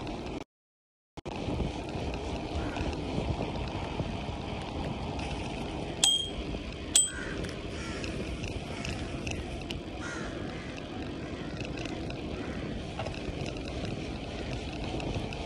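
Wind rushing over the microphone with tyre rumble from a bicycle riding along a paved street. About six seconds in, a bicycle bell rings twice, a second apart. The sound cuts out completely for a moment near the start.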